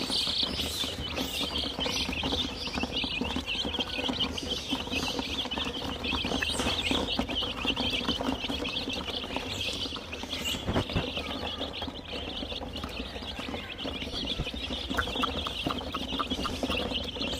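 A flock of domestic chicks peeping constantly, with many high chirps overlapping.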